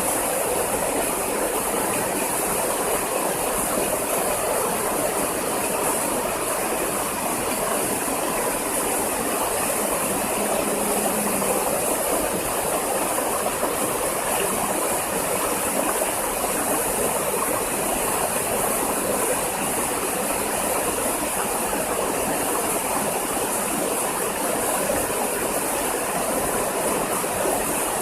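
Steady rushing water of a waterfall and stream, an even noise that does not change.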